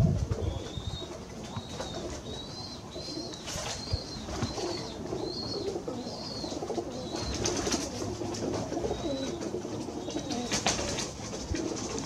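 Domestic pigeons cooing, with a short high chirp repeating about twice a second through the first seven seconds and once more near the end.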